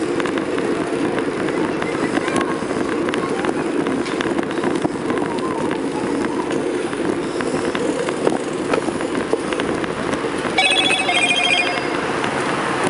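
Steady rushing wind and road noise from riding along a road, with scattered small knocks, and a brief high ringing trill near the end.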